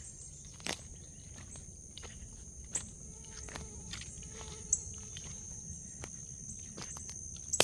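A steady high-pitched insect chorus, with scattered footsteps and sharp clicks about every one to two seconds.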